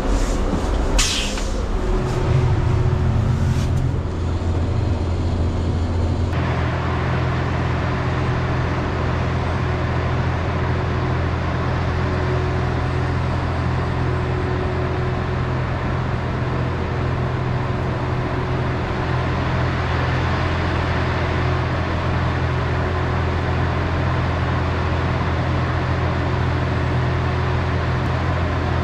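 Battery-powered trolleybus on the move: a short hiss of air about a second in, then a steady low hum with a faint steady tone and even running noise as the bus rolls along.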